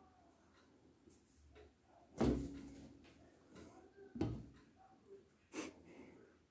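Three dull knocks on the glass front of a reptile terrarium, the first and loudest about two seconds in, the others about two and three and a half seconds later, each with a short ring.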